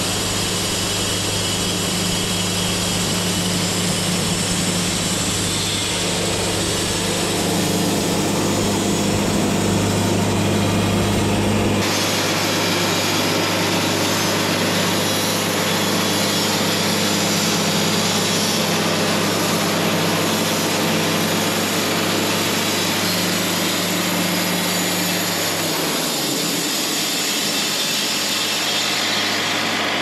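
Wood-Mizer LT70 bandsaw sawmill running and sawing a sassafras log: a loud, steady drone of the blade and machinery with a low hum underneath. The sound shifts abruptly about twelve seconds in, and near the end a low hum drops in pitch.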